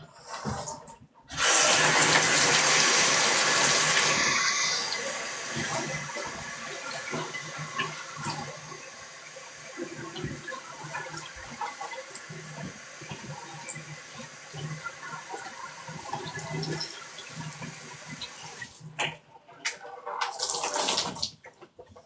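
Toilet flushing: a sudden loud rush of water about a second in, easing after a few seconds into a long spell of trickling and gurgling as the tank refills. A second short rush of water comes near the end.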